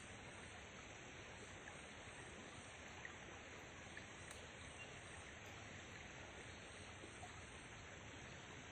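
Near silence: the faint, steady hiss of a shallow stream running over rocks, with a couple of faint ticks.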